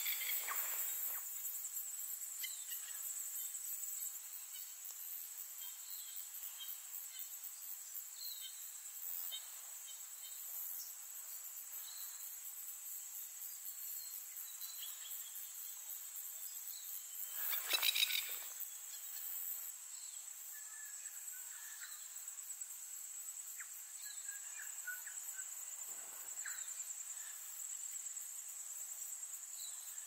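A steady, high, pulsing insect trill runs on throughout, with faint scattered chirps over it. About halfway through comes a brief louder rattling burst.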